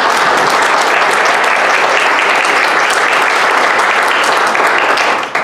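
Applause: a room of people clapping steadily, tailing off at the very end.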